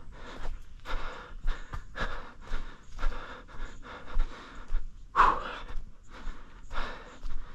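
A runner's heavy breathing, panting about once a second, with one louder exhale about five seconds in. Regular footfalls thud underneath, about twice a second.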